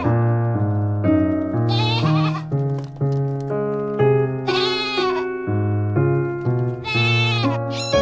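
Goats bleating three times, about two seconds in, midway and near the end, each a short wavering call, over steady background music.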